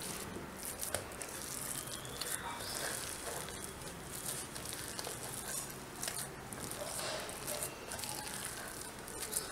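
Hands squeezing and kneading a coarse, moist ground dal mixture in a stainless steel bowl: irregular wet squishing and crumbly crackling, with fingers brushing the bowl's side.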